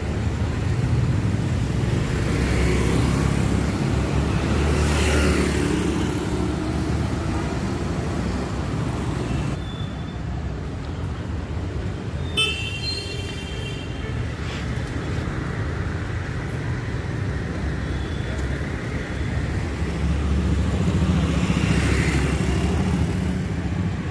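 Street traffic noise: a steady rumble of vehicles that swells twice as vehicles pass, with a short horn toot about halfway through.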